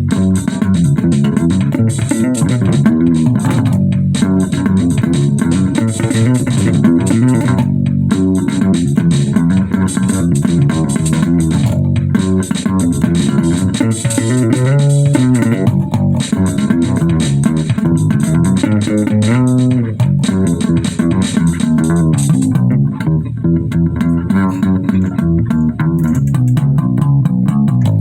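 Bass guitar playing a riff along with drums in a live one-take band run-through. The bright high end of the drums drops away about three-quarters of the way through, leaving mostly the bass.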